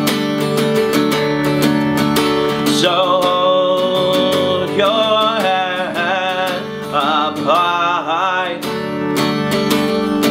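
Tanglewood acoustic guitar strummed steadily in an even rhythm, with a man's voice singing a melody over it from about three seconds in until about nine seconds.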